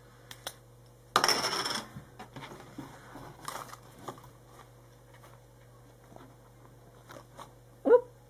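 Handling noises: a brief rustle of paper about a second in as the spiral notebook is handled, then scattered soft clicks and taps as the plastic emoji stamp is pressed onto the page. A short rising voice sound comes near the end.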